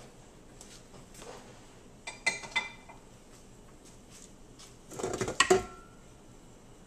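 Stainless steel stand-mixer bowl clinking and clanking against the mixer's metal base as it is unlocked and lifted off. There are two or three ringing metal clinks about two seconds in, then a louder rattle of clanks about five seconds in.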